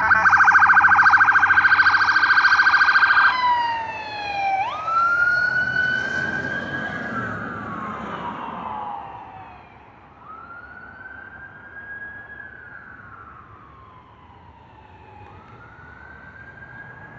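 Police car siren, first on a rapid yelp, switching about three seconds in to a slow wail that rises and falls in long sweeps. It grows steadily fainter.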